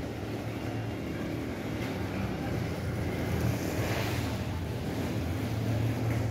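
A small car driving through a flooded street, its tyres hissing through the standing water, loudest about four seconds in as it passes, over a steady low rumble of traffic.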